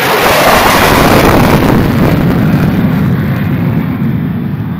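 Low, fast pass of an F-16 fighter jet at about 650 mph, just under the speed of sound. Its jet noise arrives all at once at full loudness, then drops in pitch and slowly fades as it moves away.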